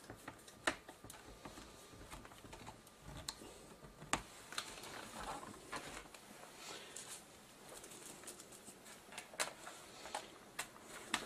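Faint handling sounds of a laptop's plastic case and a screwdriver: scattered sharp clicks and knocks as the laptop is turned over and set down, with light scraping and ticking as a screw is worked on the base.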